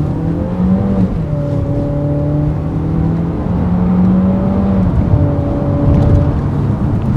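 Suzuki SX4's 1.4-litre petrol engine heard from inside the cabin under hard acceleration during a timed 0–100 km/h run. Its note holds steady for a second or so at a time, shifting pitch a few times along the way.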